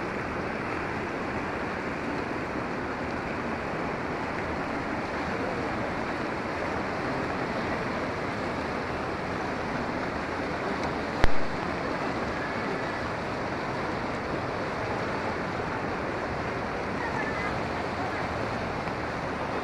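A river in flood, muddy water rushing past in a steady, dense rush. One sharp click about eleven seconds in.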